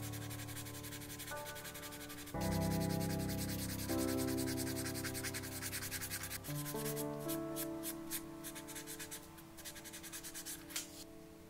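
Sandpaper rubbed back and forth on a plastic model car body in quick rasping strokes, smoothing the part before painting. The strokes are sharpest in the second half and stop shortly before the end. Background music with sustained chords plays over it.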